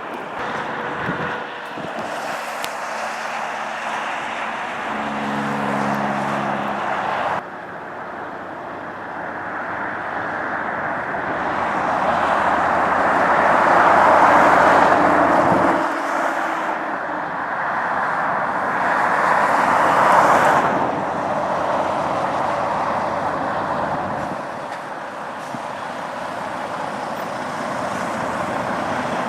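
Road and tyre noise of vehicles on a snowy highway, changing abruptly about seven seconds in, then swelling louder twice as traffic goes by. A short low hum is heard early on.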